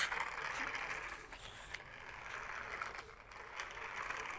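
Toy JCB loader's small electric gear motor whirring under a wired remote, a steady plastic-gear whir with a few brief dips.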